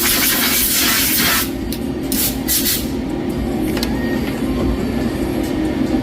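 CNC lathe machining with a steady hum under it. A loud hiss of spray stops about a second and a half in, and two short hisses follow a little later.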